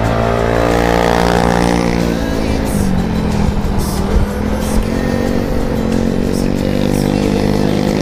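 Motorcycle engine running under way, rising in pitch over the first couple of seconds, then easing back about three seconds in and running steadily.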